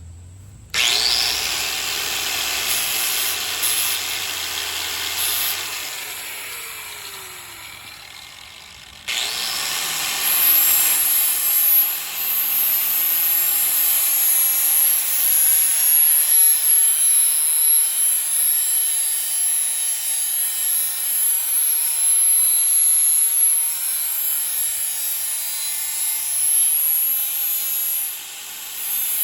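DeWalt electric sander grinding a machete blade to sharpen it: switched on about a second in, it spins down with a falling pitch over several seconds, then is switched on again about nine seconds in and runs steadily with a high whine.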